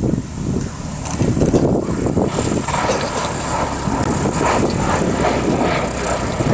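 Radio-controlled model airplane droning in the distance as it comes in to land, under heavy wind rumble on the microphone. The plane's sound fills in from about two and a half seconds in as it draws nearer.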